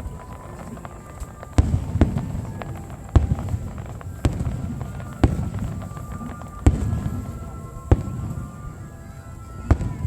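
Aerial fireworks shells bursting: about eight sharp booms at irregular intervals of roughly one to one and a half seconds, each followed by a low rumbling echo.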